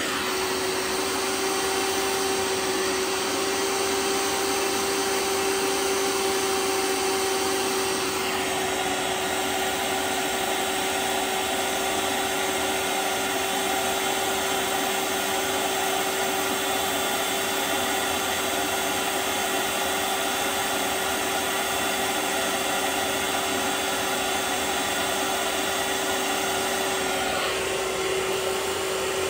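Vax OnePWR cordless carpet cleaner's suction motor running steadily while it extracts spilled liquid from carpet, with a constant hum tone. Its sound changes about eight seconds in and changes back shortly before the end.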